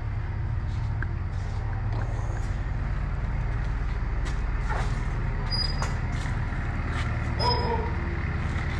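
Old truck's engine idling steadily, with a few faint clicks and a short higher-pitched sound about seven and a half seconds in.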